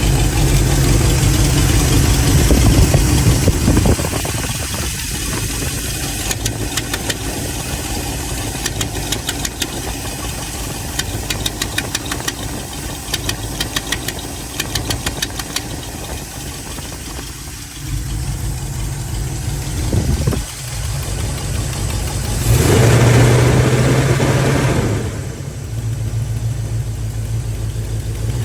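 Chevy 350 small-block V8 running, with a rapid, regular ticking from a leaking exhaust. It gets louder for a couple of seconds near the end.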